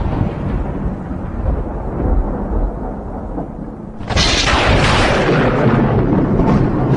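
Thunder: a deep rumble fading away, then a sudden sharp crack about four seconds in, followed by heavy rolling rumble.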